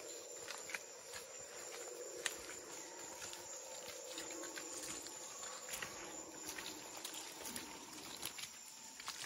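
A steady, wavering low chorus of rainforest animal calls, fading near the end, with scattered footsteps on the forest trail.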